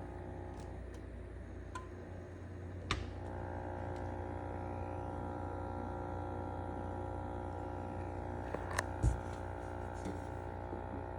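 GE Monogram wine fridge running with a steady hum of many layered tones, the noise the owner finds loud enough to warrant a replacement. A few sharp clicks cut in, about three seconds in and twice around nine seconds.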